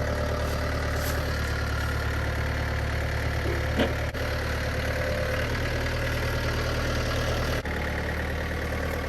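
Engine of a wheeled lifting machine running at a steady idle, with one short sharp sound a little before halfway.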